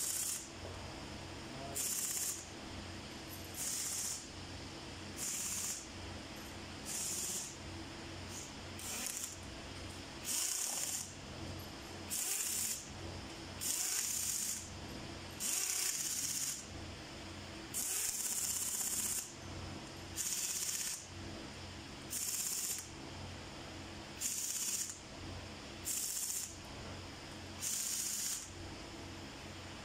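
Compressed-air blow gun hissing in short bursts, about one every one and a half to two seconds, blowing off the cylinder heads of a Cummins QST30 engine under assembly. A steady low hum runs underneath.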